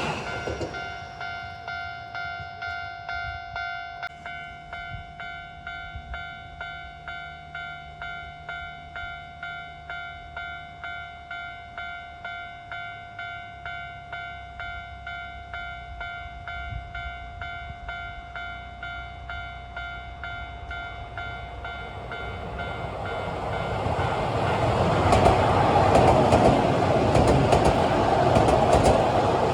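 Japanese level crossing's electronic warning bell ringing in even strokes, about two a second. From about 22 seconds in, a Keio 1000 series electric train approaches and runs through the crossing. Its running noise swells and drowns the bell near the end.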